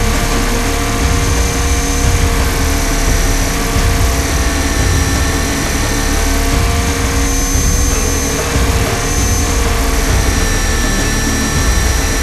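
Radio-controlled 500-size UH-60 Black Hawk scale helicopter in flight, heard from its onboard cockpit camera: a steady high whine from its drive over rotor noise and a heavy low rumble of wind on the microphone. The whine's pitch holds nearly constant, shifting only slightly a few times.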